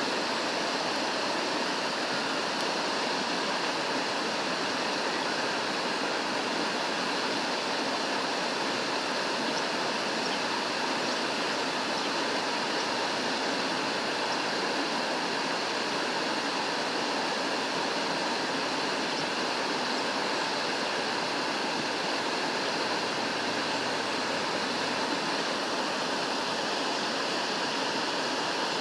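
Rushing water, a steady, unbroken hiss that doesn't change.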